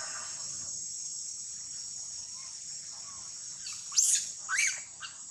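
Steady high-pitched chorus of insects, crickets or cicadas, in the forest. About four seconds in, two short, loud, high-pitched animal calls that sweep in pitch cut across it, a second apart.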